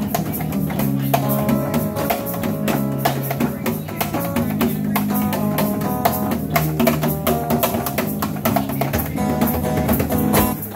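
Live band playing an instrumental passage: strummed acoustic guitar and electric bass over a steady cajón beat. The playing breaks off with a last hit near the end.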